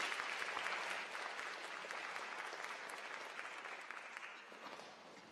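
Audience applauding, the clapping fading steadily and dying away near the end.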